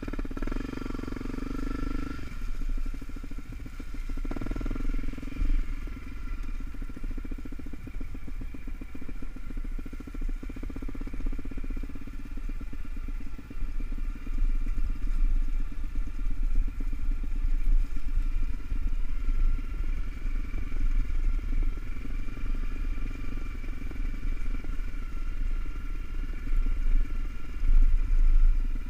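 Honda CRF250L's single-cylinder four-stroke engine running steadily as the dual-sport bike rides along a dirt trail.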